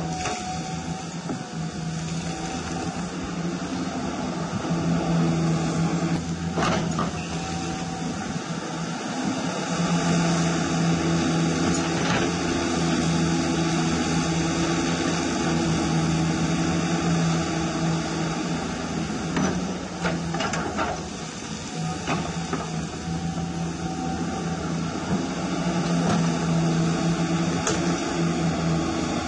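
Radio-controlled hydraulic excavator's electric hydraulic pump running with a steady hum that swells and eases in stretches as the boom and bucket work through wet clay, with a few brief clicks.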